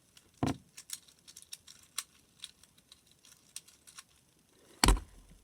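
Plastic infinity cube being flipped and folded in the hands: a run of small clicks and clacks, with a louder knock about half a second in and another near the end.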